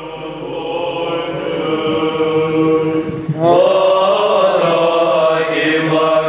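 Eastern Orthodox liturgical chant sung by men's voices in long held notes. A louder phrase begins about three and a half seconds in.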